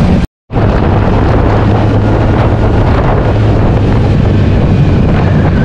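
Kawasaki Z900's inline-four engine running at steady revs on the move, heavily overlaid by wind noise buffeting the camera's microphone. The sound cuts out for a moment just after the start.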